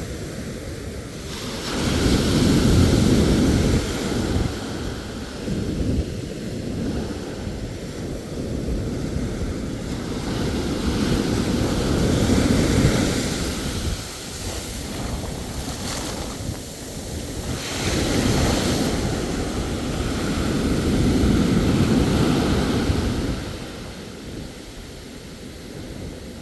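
Ocean waves surging and washing on the shore, swelling and ebbing three times, with wind buffeting the microphone.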